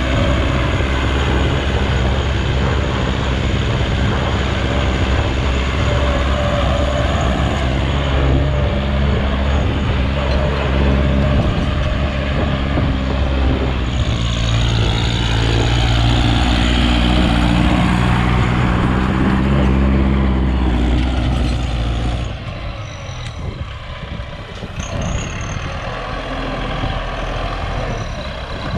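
Kubota L5018 tractor's diesel engine running under load while it drives a rear-mounted rotary tiller through dry soil. The engine is loud and steady, its pitch shifting a little, and it becomes quieter and thinner about three-quarters of the way through.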